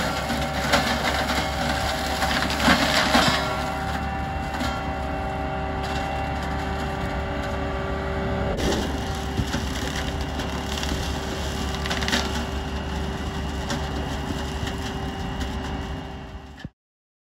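McConnell 8085TT flail hedge cutter on a Fendt 716 Vario tractor cutting a hedge: the flail head cracks and splinters through branches over the steady hum of the tractor and the spinning flail. The sound fades and cuts off suddenly near the end.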